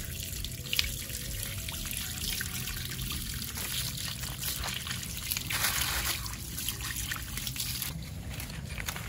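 Water splashing and trickling as a hand swishes plucked doves clean in a shallow puddle; the splashing stops a second or so before the end.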